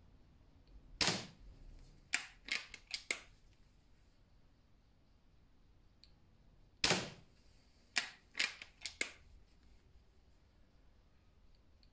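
Two shots from a Haenel 49a spring-piston air rifle firing round balls, about six seconds apart, the first about a second in, each with a short echo. Each shot is followed about a second later by a quick run of four or five sharp clicks.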